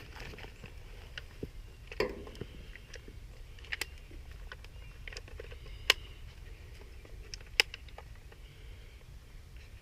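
Scattered sharp clicks and taps of hands and tools working at an air-conditioning condenser's open service panel, the two loudest about six and seven and a half seconds in, over a low steady rumble; the unit itself is not running.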